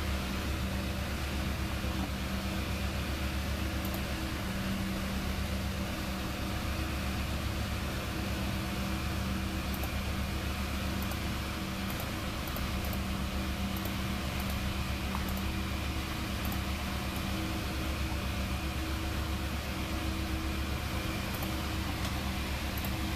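Steady whir of computer cooling fans running, with a low, even electrical hum beneath it and a few faint high ticks.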